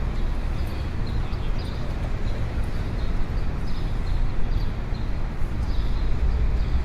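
City street ambience: a steady low rumble of traffic, with short high-pitched chirps recurring irregularly over it.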